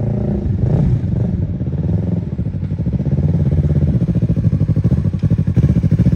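Sport motorcycle engine running as the bike rolls up and slows, the engine note dropping early on. It then settles into a low, rapid throb at low revs.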